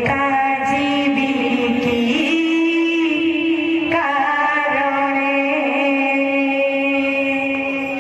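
Odia devotional kirtan music: long held melodic notes over a steady drone, the main note stepping up in pitch about two seconds in and back down halfway through.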